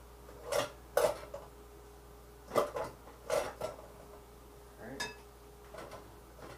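A utensil knocking and scraping against a rice cooker pot and a bowl as cooked rice is scooped out: several sharp clinks spread over the first few seconds.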